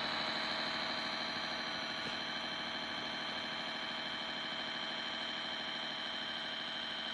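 Kyosho Blizzard radio-controlled tracked snow vehicle running, its electric drive motors and gearing giving a steady high whine.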